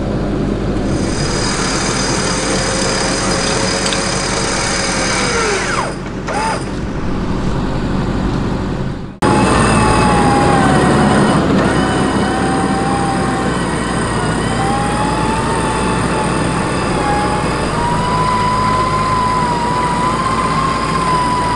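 4x4 engine running with its wheels churning through deep mud, the engine note sinking away about five seconds in. After a cut about nine seconds in, a winch whines steadily under load, its pitch wandering and slowly rising, as it drags the heavy vehicle through the mud bog on a double line.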